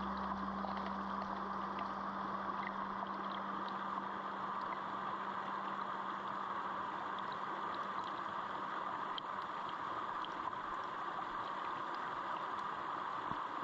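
Small waves of lake water lapping and washing against shoreline rock, a steady watery wash with scattered small splashes.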